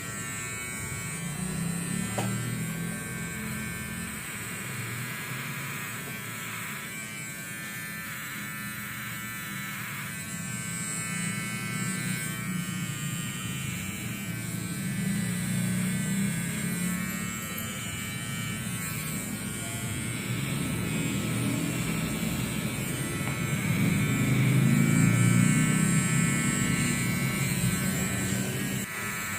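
Electric hair clippers buzzing steadily while shaving a head down. The buzz swells and eases as the blade works over the scalp and is loudest a few seconds before the end.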